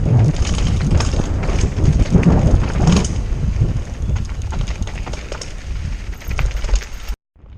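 Wind buffeting the microphone while a mountain bike rattles and clacks over rough trail at speed, with many sharp knocks. It cuts off suddenly near the end.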